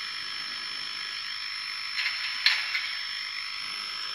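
Tsunami TSU-2200 sound decoder in an HO-scale model steam locomotive playing its standing-still sounds through the model's small speaker: a steady hiss with a high whine in it. A few short clicks come about two to three seconds in.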